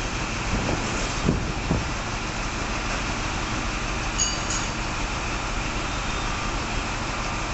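InterCity 125 (Class 43) power car's diesel engine running as the train rolls slowly into the platform: a steady rumble, with a few low knocks between one and two seconds in and a brief high squeal about four seconds in.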